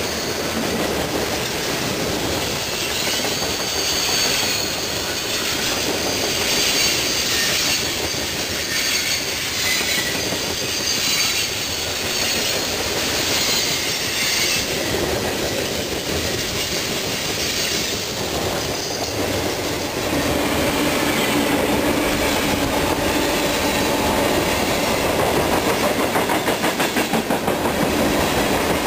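Freight train cars rolling past close by, their steel wheels running steadily on the rails, with a high wheel squeal coming and going during the first half. The sound gets a little louder in the last third.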